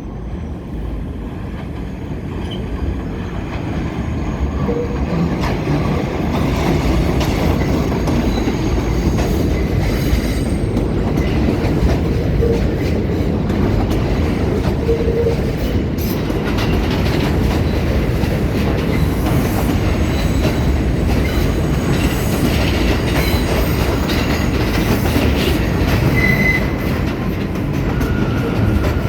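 R179 subway train running on steel rails, growing louder over the first several seconds and then holding steady. Wheels click over rail joints, and a short high wheel squeal comes near the end.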